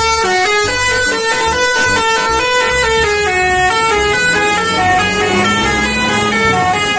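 An electronic tune: a quick melody of bright, buzzy notes that changes pitch every fraction of a second.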